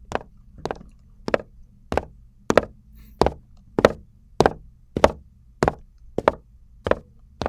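Recorded footstep sound effects at a steady walking pace, about twelve steps roughly 0.6 s apart. They grow louder toward the middle and fade again, volume automation making the walker seem to approach and then move away.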